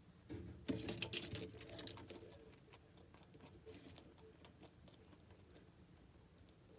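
Bearded dragon scrambling into a bowl of salad greens: a burst of claw scratches and leaf rustling about a second in, then scattered small clicks and crackles as it moves among the leaves.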